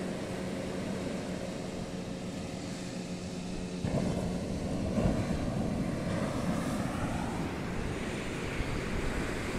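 Surf washing on the shore with a steady engine drone over it; about four seconds in the drone drops out and louder breaking waves take over.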